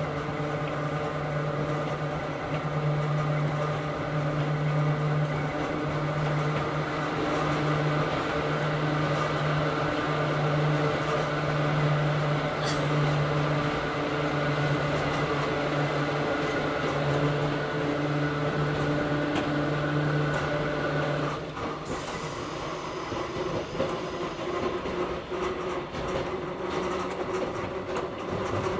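Hakone Tozan Railway Moha 1 class electric car running, heard from inside the car: the low, pulsing hum of its nose-suspended traction motors and gears, which stops about 21 seconds in. After that, the wheels rumble and click over the track.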